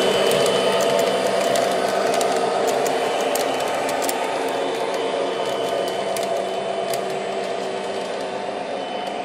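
Model freight cars rolling on three-rail O-gauge track, a steady rumble of small metal wheels with scattered light clicks, slowly getting quieter as the end of the train passes and moves away.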